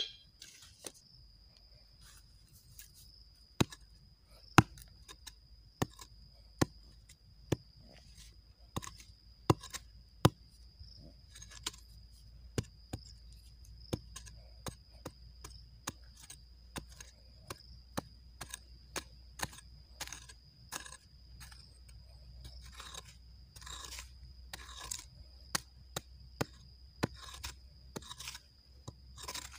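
Short-handled hand hoe chopping and scraping into dry, crumbly soil to dig out a metal detector signal, with sharp strikes about once a second. A faint steady high tone runs underneath.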